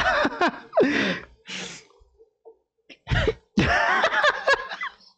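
Two men laughing hard in breathy, gasping bursts, dying down about two seconds in and breaking out again a second later.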